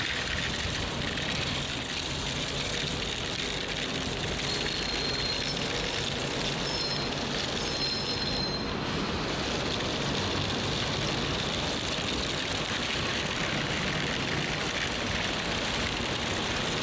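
Wooden planks scraping and rattling along asphalt as the sign is dragged by a string: a steady, unbroken grinding noise.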